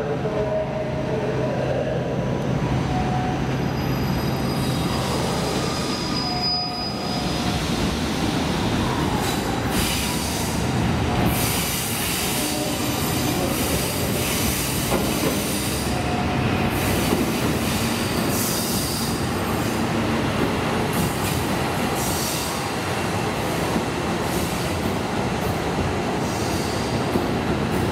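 Crystal Express diesel train rolling along a station platform, its wheels squealing on the rails over the steady run of the train.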